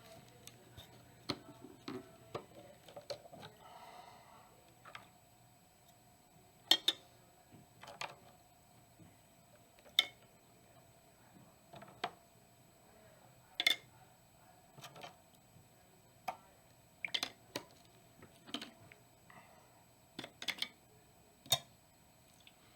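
Metal suppressor parts being handled against a container and tools: irregular sharp clinks and knocks, about a dozen, spread unevenly.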